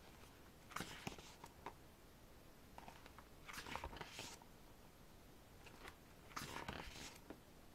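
Pages of a K-pop album photobook being turned by hand: three soft paper rustles, about a second in, around the middle, and near the end.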